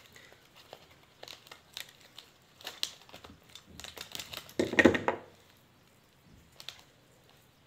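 Needle-nose pliers stripping and working the insulated lead wires of a ceiling fan's stator: faint crinkling and small scattered clicks of wire and plastic insulation. About five seconds in comes a louder clatter as the pliers go down on the wooden bench.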